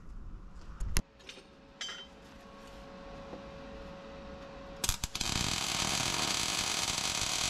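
A few metal clinks and taps as the steel bracket is handled into place. Then, just before five seconds in, a MIG welder strikes an arc and runs steadily for about two and a half seconds, tack-welding the laser-cut bracket to the chassis, and stops abruptly.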